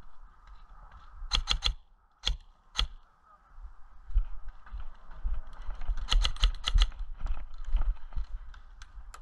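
Airsoft rifle firing: a few quick shots about a second in, two single shots, then a rapid string of about seven sharp clicking shots about six seconds in.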